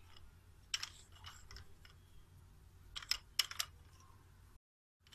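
Light clicks and taps from handling a telescoping backdrop-stand pole and its plastic lock collar: a few sharp clicks about a second in and a quick cluster around three seconds in. The sound cuts out briefly near the end.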